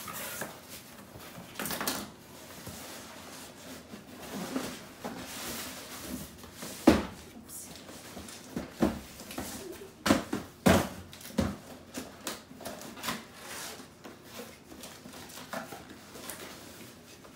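Cardboard boxes being handled and opened: flaps rustling and scraping, with scattered knocks and thumps, the loudest about seven seconds in.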